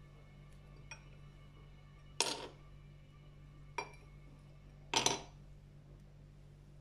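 Tealight candles in plastic cups set down into glass candle holders: four short clinks and knocks of cup against glass, the loudest about two and five seconds in, over a faint steady low hum.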